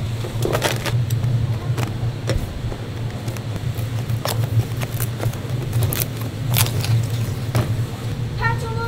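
Cardboard takeout box being folded and tucked shut, a string of short crisp clicks and creases over a steady low hum. A voice starts near the end.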